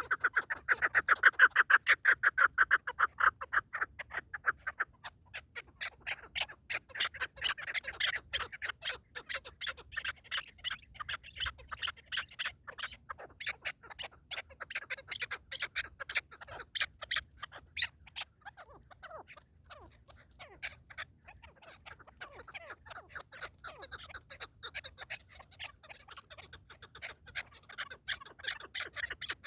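Partridge calling: a long run of rapid, repeated clucking notes, several a second, loudest in the first few seconds and carrying on more unevenly afterwards.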